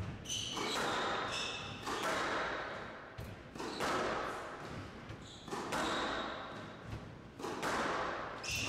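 Squash rally: the ball struck by rackets and smacking into the court walls about once a second, each hit trailing off in hall echo. Several short high-pitched squeaks of players' shoes on the court floor come in between.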